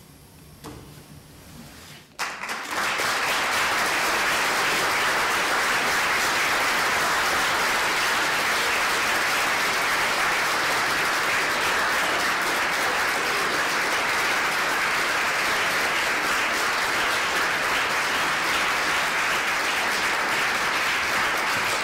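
Audience applauding, breaking out suddenly about two seconds in and then holding steady.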